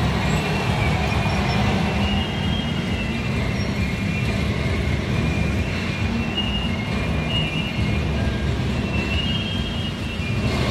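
Train sound: a steady low rumble with brief high wheel squeals coming and going.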